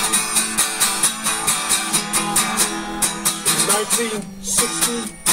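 Music with a strummed guitar playing fast, even strokes. It breaks off briefly twice near the end, with a short voice in between.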